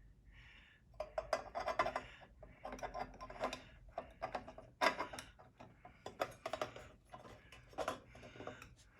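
Small metal and plastic parts of an ERV blower motor being handled and fitted back together by hand: a run of irregular clicks, taps and light clatter that starts about a second in, with one sharper knock about halfway.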